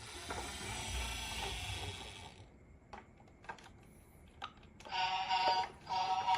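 Marbles rolling down a wooden HABA marble run track, a rolling rattle for about two and a half seconds, followed by a few separate clicks of marbles knocking. Near the end a toy's electronic tune with steady beeping tones starts up.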